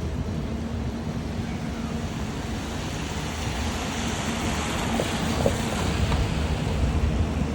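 A car passing on a wet road, its tyres hissing as the sound swells and fades through the middle. Choppy low rumble of wind buffeting the microphone sits underneath.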